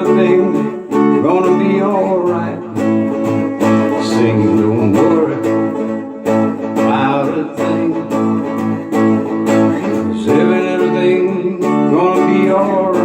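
Acoustic guitar strummed in a steady, even rhythm, with a voice singing wordlessly over it at times.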